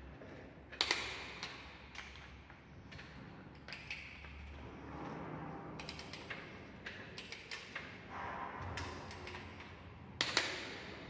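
Irregular mechanical clicking and ratcheting of a hand tool on steel anchor hardware, with two sharp metallic knocks, one about a second in and one near the end.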